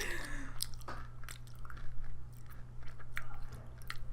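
Close-up chewing and crunching of a Kit Kat's crisp wafer and chocolate: irregular small crunches and mouth clicks, with a short falling tone fading out at the very start.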